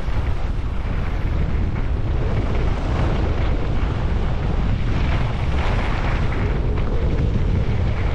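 Wind buffeting the camera's microphone on a fast ski descent: a loud, steady, fluttering rumble, with the hiss of skis running over snow beneath it that swells a few times.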